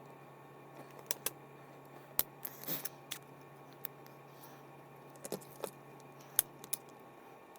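Small metal and plastic parts of a fishing reel being handled during disassembly: scattered sharp clicks and light clinks, with a brief rattle a little under three seconds in.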